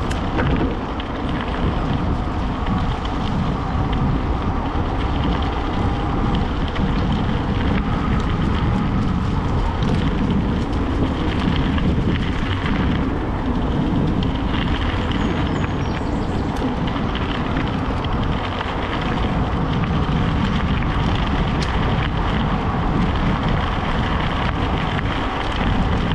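Bicycle riding off-road: wind rushing over the microphone and tyres rumbling on the track, a loud, steady noise.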